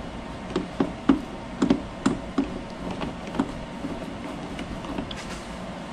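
Irregular clicks and taps of a hand tool driving the screws that hold a speaker in a motorcycle's plastic fairing. About a dozen come in the first three and a half seconds, then they stop.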